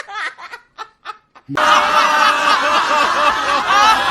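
Laughter sound effects: a person's laugh trails off in short bursts. About a second and a half in, a new clip starts abruptly, with many voices laughing together in a dense, continuous, wavering chorus.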